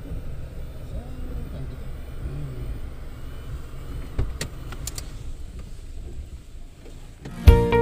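Parked Toyota SUV running with a low steady rumble. There are a few sharp clicks about four to five seconds in, as one of its doors is opened. Music with a strong beat starts near the end.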